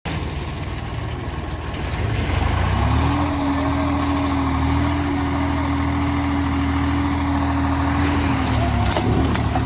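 Diesel tractor engine running hard with its tractor stuck in mud. It gets louder about two seconds in, then holds a steady pitch, dips briefly with a couple of clicks near the end, and picks up again.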